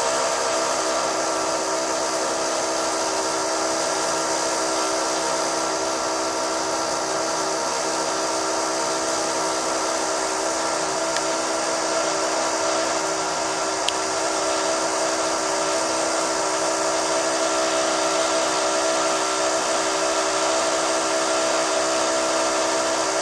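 High-pitched power drill running continuously: a steady whine of several pitched tones over a hiss, holding at one level.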